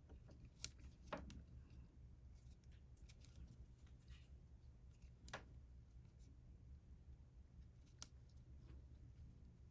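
Near silence over a low room hum, with a few faint clicks and light rustles of a crochet hook working yarn.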